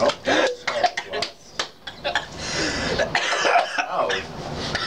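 A man coughing in a series of short, sharp coughs and clearing his throat, with snatches of voice in between.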